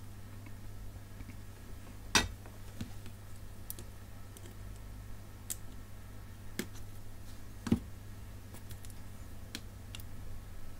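Scattered light clicks and taps of small hand tools on a circuit board during soldering, with a sharper tap about two seconds in and another near eight seconds, over a steady low hum.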